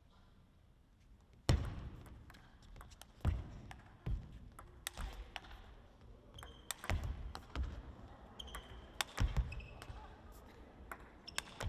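Table tennis play in a sports hall: the ball clicking off paddles and the table in a quick irregular series of sharp knocks, some with heavy thumps, and brief squeaks of shoes on the court floor.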